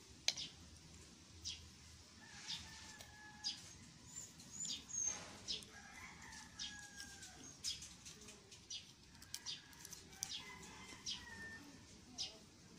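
Faint bird calls and chirps, with sharp clicks about once a second.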